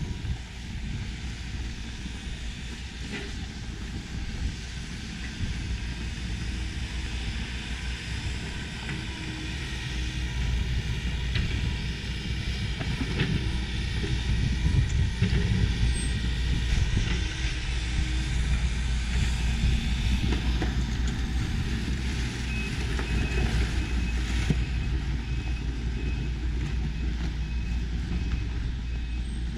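Outdoor street ambience on a snowy sidewalk: a steady low rumble of road traffic and machinery, with footsteps crunching in packed snow. A faint high beep repeats over the last several seconds.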